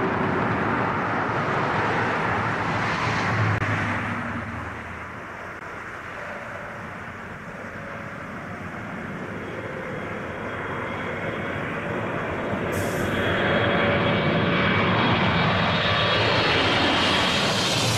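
Jet engine noise of Boeing 777 airliners on final approach, passing low overhead: a continuous roar that eases off in the middle and builds again toward the end, with a thin high whine over the rumble in the louder second part.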